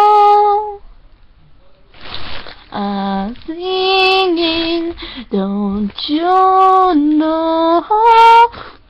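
A girl singing unaccompanied in long held notes. She pauses for about a second near the start, then sings another run of held notes that breaks off near the end.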